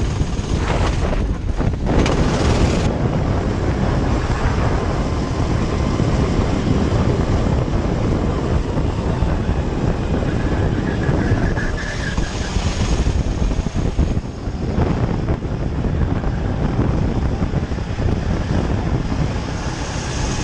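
Go-kart engine running at speed, with heavy wind rushing over a camera mounted on the kart and a short break about two seconds in.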